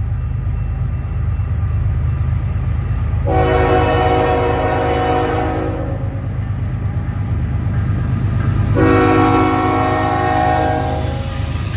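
Diesel locomotive air horn on an approaching freight train sounding two long blasts, the first about three seconds in and the second near the end, over a steady low rumble.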